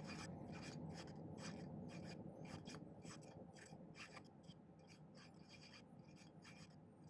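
Hand file rasping in short strokes, about three a second, across the end of a silver wire to give it a long taper. The strokes are faint.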